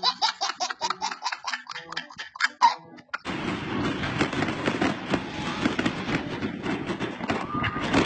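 A baby laughing in a quick run of short giggles for about three seconds; then it cuts suddenly to a dense, steady din peppered with sharp pops from fireworks going off.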